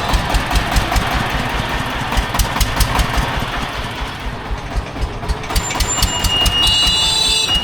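An engine idling with a steady, even pulsing beat. Near the end a high, steady tone sounds over it.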